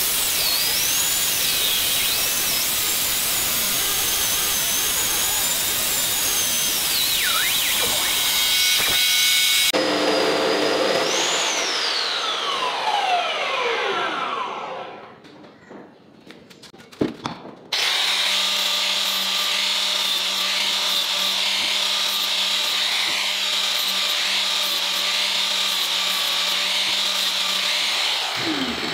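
Abrasive chop saw cutting through steel square tube, its cutting noise wavering in pitch as the blade bites. About ten seconds in the blade comes out of the cut and the motor winds down with a long falling whine. After a short lull and a click, a steady power-tool run starts again with a low hum under it.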